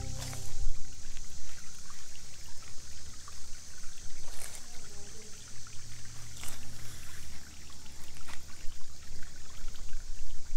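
Shallow creek water trickling and burbling over a flat rock streambed, a steady babbling with a few sharper ticks along the way.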